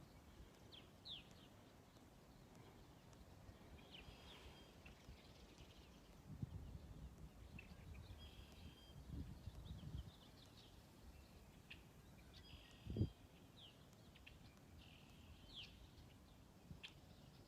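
Quiet outdoor ambience with scattered short bird chirps. Low rumbling noise comes in the middle, and one short thump sounds near the end.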